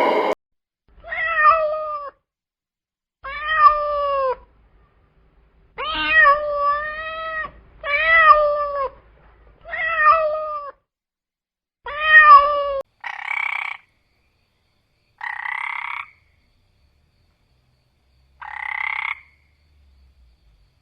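A cat meowing six times, each meow about a second long and rising then falling in pitch. It is followed by three shorter rasping calls a couple of seconds apart, like a frog croaking.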